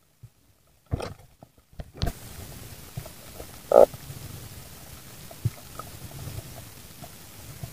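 Muffled underwater sound as heard through a submerged camera: a steady faint hiss with low rumbling and scattered small clicks, broken by one short, loud croak-like burst a little before the middle.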